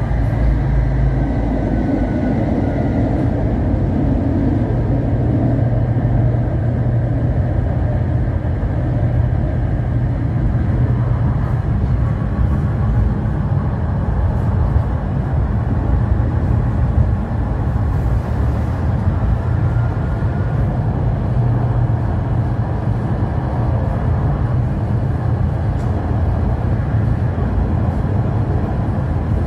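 Tram running along its track, a steady rumble of wheels on rails and running gear, heard from inside the tram.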